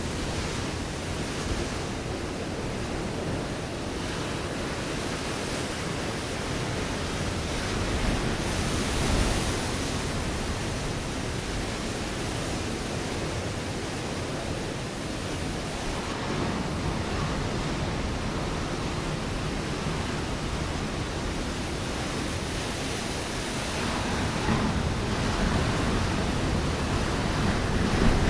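Ocean waves breaking on a rocky shore: a continuous wash of surf that swells with a breaking wave about eight seconds in and builds again near the end.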